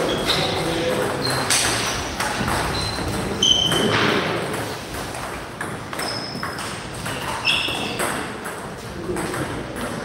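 Table tennis balls clicking off paddles and tables in rallies, many bounces leaving a short high ping. The hits come irregularly, a few per second.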